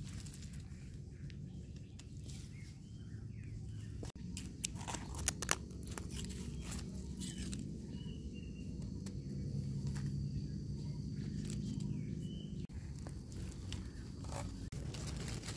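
Crunching of dry leaves and soil and the scrape of a knife as a termite mushroom is dug out by hand, with a cluster of sharp clicks about five seconds in.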